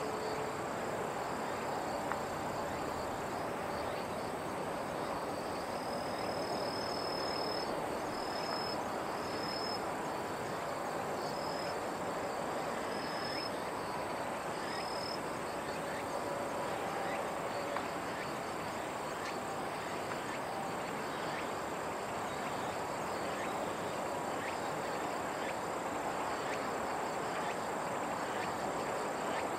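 Steady outdoor background noise with a continuous high insect drone. Between about 6 and 15 seconds in, a handful of short, high chirps sound. No aircraft is heard passing.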